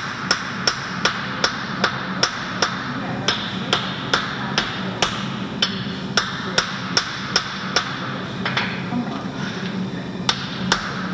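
Hand hammer striking a hot composite damascus billet on an anvil with ringing blows, about two to three a second, pausing briefly about eight seconds in before a few more blows. This is the forge-welding stage, where careful passes set the welds and drive the flux out of the layered bars. A steady low hum runs underneath.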